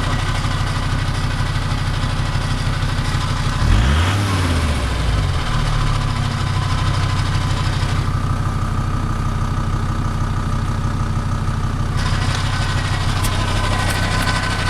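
Volkswagen Transporter engine idling steadily, revved briefly once about four seconds in, then settling back to idle. This is the noise heard after a new Valeo clutch was fitted.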